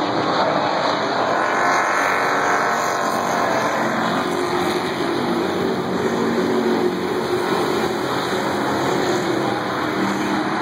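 A pack of dirt-track race cars running hard around the track, a steady engine noise. Engine pitch rises about two seconds in as cars accelerate past.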